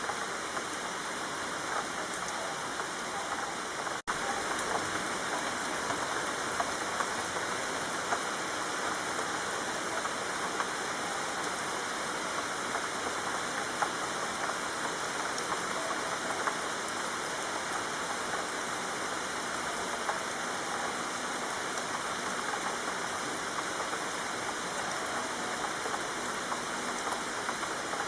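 Steady rain falling on a street, with scattered louder drops and splashes. The sound cuts out for an instant about four seconds in, then carries on.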